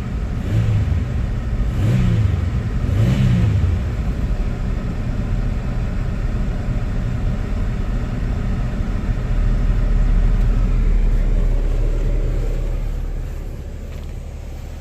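1998 Chevy Venture's 3.4-litre V6 idling steadily as it warms toward operating temperature, with head-gasket sealer added to its coolant. A few slight swells in the first few seconds, and it grows quieter near the end.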